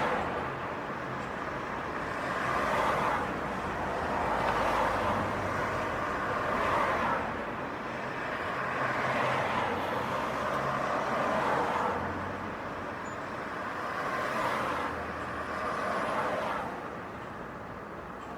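City street traffic: cars passing one after another, each one's tyre and engine noise swelling and fading every couple of seconds. The traffic thins out near the end.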